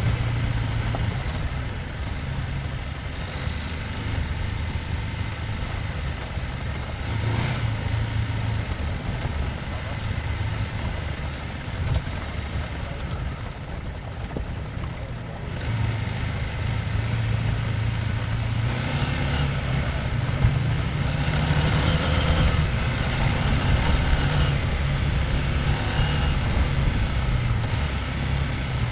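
Husqvarna Norden 901's parallel-twin engine running at low revs on an off-road trail, the throttle opening and closing. It eases off and goes quieter about halfway through, then picks up and runs louder from about two thirds in.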